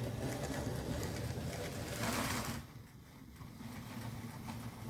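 Tender-driven Flying Scotsman model locomotive's electric motor running and wheels rolling on the track while hauling a heavy train of about eleven coaches; the sound gets quieter about two and a half seconds in, after a short hissing rustle.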